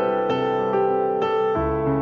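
Background piano music, with new notes entering about every half second.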